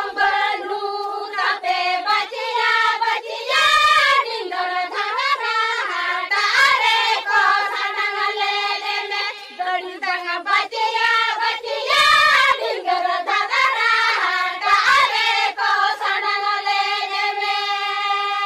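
A high voice singing a melody without pause, its pitch gliding from note to note, ending on a long held note.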